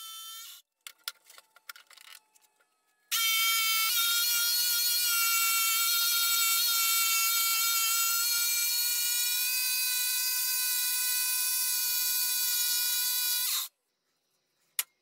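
Bosch PST 650 jigsaw sawing through a thick oak board, its motor running with a steady high whine. The first run ends under a second in and a few faint clicks follow. The saw starts again about three seconds in, runs steadily, and cuts off sharply about a second before the end.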